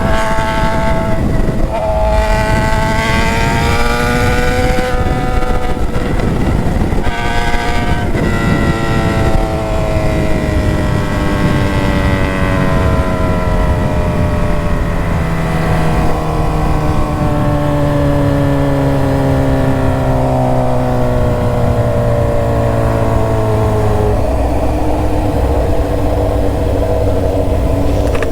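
Suzuki GSX-S750 inline-four through a straight-pipe exhaust, heard from on board. It revs up through a few quick gear changes in the first several seconds, then the engine speed falls slowly for about fifteen seconds and settles to a steady lower note near the end. Wind rush on the microphone runs underneath.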